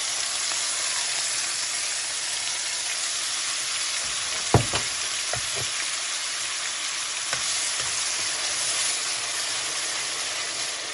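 Chopped onion frying in hot oil with cumin seeds in a steel kadai, a steady sizzling hiss. A few sharp knocks of a metal spoon against the pan come about halfway through as the onion is stirred.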